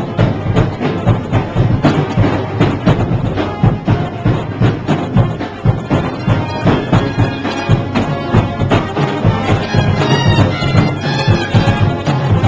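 Live marching band music: drums beat a fast, steady rhythm, and horns come in with a melody about halfway through.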